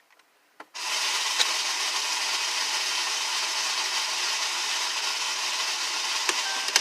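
A 2012 Dodge Durango's steady, even rasping noise when the key is turned, starting a little under a second in, with a few clicks and no sound of the engine cranking over: the no-start symptom the owner calls a mess.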